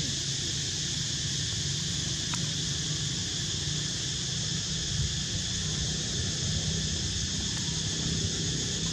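Steady outdoor ambience: a continuous high-pitched insect drone with a low rumble underneath.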